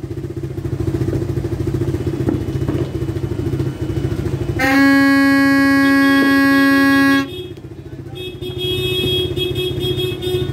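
A motorcycle engine idling with a fast, even putter. About four and a half seconds in, a loud steady horn blast sounds for about two and a half seconds, and a quieter, higher-pitched horn tone follows near the end.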